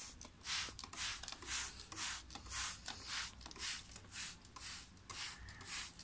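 Hand-pumped spray bottle misting water onto a cockatoo for a bath, with short hissing squirts at about two a second.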